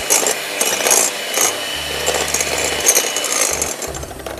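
Electric hand mixer running, its beaters whisking eggs, egg yolks and sugar in a glass bowl; the sound dies away near the end.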